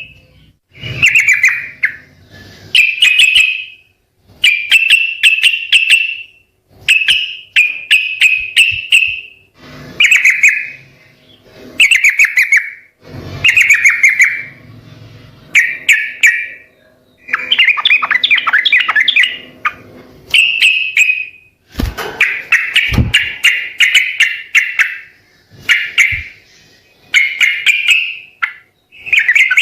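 Yellow-vented bulbul (trucukan) singing: a long run of short chirping phrases, each about a second or two long, one after another with brief pauses between them.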